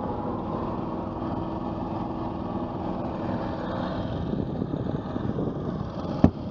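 Dive boat's engine running steadily, with one sharp knock near the end.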